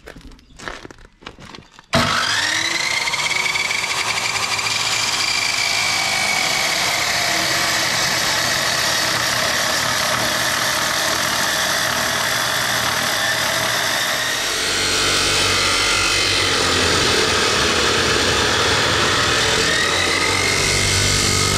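An Ozito 2000 W abrasive metal cut-off saw starts up about two seconds in with a rising whine, then grinds steadily through steel rectangular hollow section. About fourteen seconds in the sound turns heavier and lower, and near the end the motor's whine climbs again as the disc comes through the tube.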